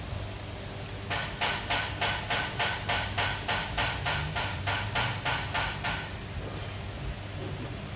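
Rhythmic mechanical rasping, about three strokes a second, starting about a second in and stopping after about five seconds.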